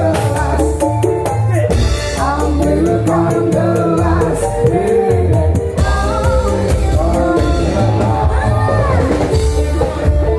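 A live dangdut band playing loudly with a singer: a steady drum and percussion beat, bass and keyboards under a sung melody.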